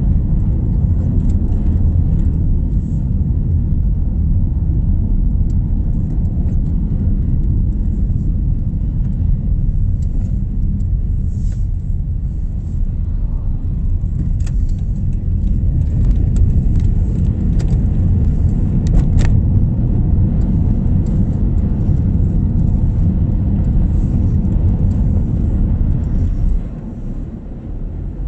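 Steady low rumble of a moving car's road and engine noise heard from inside the cabin, with a few faint clicks, easing off and getting quieter near the end.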